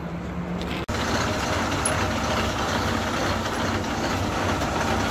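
A large vehicle's engine idling steadily, with a brief dropout about a second in.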